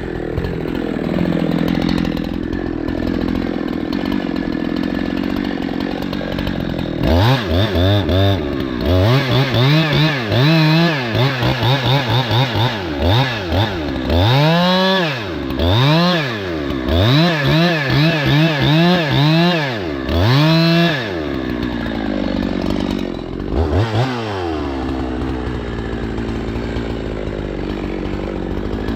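Two-stroke chainsaw running steadily, then from about seven seconds in revved up and down over and over, roughly once a second, for some fourteen seconds, before settling back to a steady run with one more brief rev near the end.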